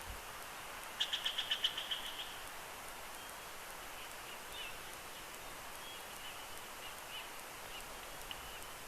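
Bald eagle chattering call: a quick run of about eight high, piping notes lasting about a second, over a steady hiss. A few faint high chirps follow.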